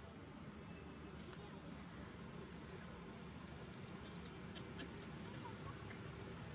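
Quiet outdoor background hiss with a bird's short, high chirp that dips and rises in pitch, repeating about once a second. A few faint clicks come around the middle.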